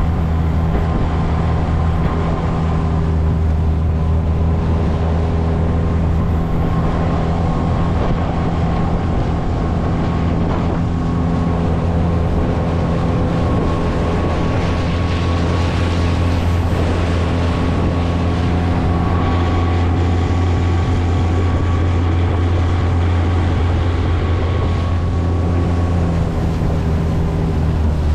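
Outboard motor on an inflatable boat running at a steady speed, with water and wind noise from the boat moving across the lake.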